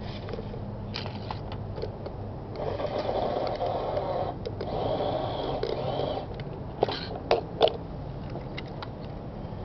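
Small electric motors and gears of radio-controlled mini trucks whining in two bursts of a second or two each as they drive on gravel, the gearing set for speed rather than torque. A few sharp knocks follow about seven seconds in.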